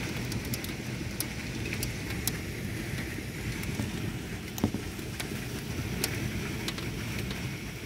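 Monsoon thunderstorm rain and wind, heard from indoors through a window: a steady low rush with scattered sharp ticks of drops striking the glass and the house.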